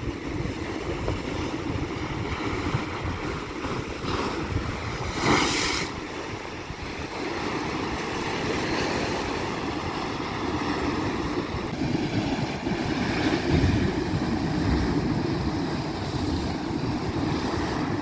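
Rough sea surf washing up a concrete slipway and breaking against a concrete breakwater, with wind buffeting the microphone. A louder hissing surge comes about five seconds in.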